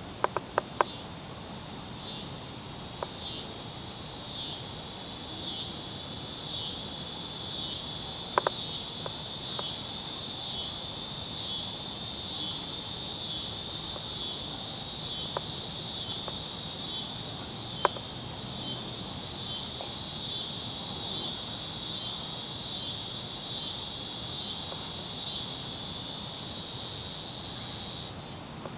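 Annual cicadas singing late in the season, a thinned-out chorus with most of them already dead: a high, steady buzz that swells and fades about once a second. A few sharp clicks come near the start and a few more are scattered later.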